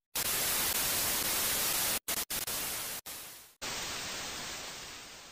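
Analog TV static hiss used as a glitch sound effect, broken by several abrupt short dropouts and fading out near the end.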